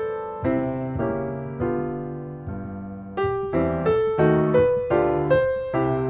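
Background piano music: struck notes and chords that ring and fade, moving a little faster about three seconds in.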